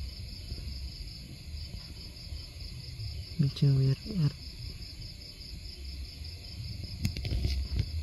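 Insects chirring steadily in the background, a high pulsing trill that keeps going, over a low rumble.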